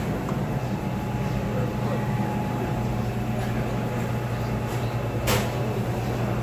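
Buffet restaurant ambience: a steady low machine hum under indistinct background chatter, with one sharp clack about five seconds in.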